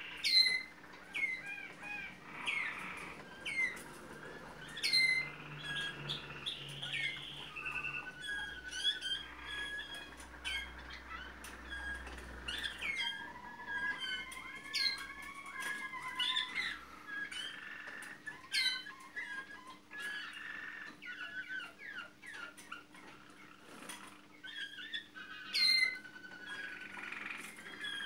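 Malinois (Waterslager) song canaries singing in their cages: short downward-sliding chirps come again and again, with rolling trills in the middle stretch.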